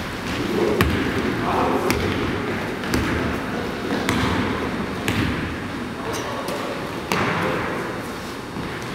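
Basketball being dribbled on a hardwood gym floor, a sharp bounce about once a second, over the players' running footsteps on the court.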